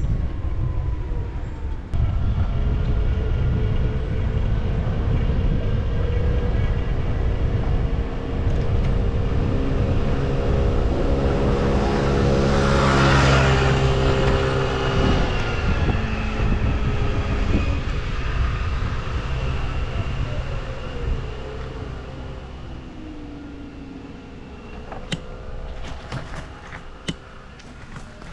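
Motor scooter engine running close by with a steady drone whose pitch shifts a couple of times, and a car passing by about halfway through. The engine fades after about twenty seconds, leaving a few sharp clicks near the end.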